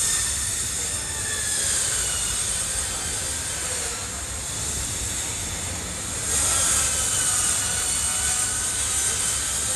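Low-floor tram of Istanbul's T1 line running along the track: a steady rumble and hiss with a faint whine that rises and falls. It gets louder about six seconds in.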